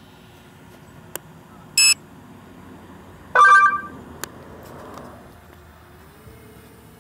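Two short electronic beeps from the phone running the drone's control app, about a second and a half apart, the second louder, with a sharp click before each.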